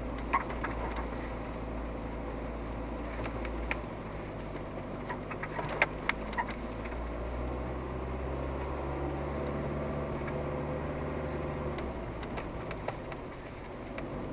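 SUV engine running at low speed, heard from inside the cabin while crawling over a rutted dirt track, its pitch shifting for a few seconds in the middle. Scattered sharp knocks and rattles from the body and suspension jolting over the bumps.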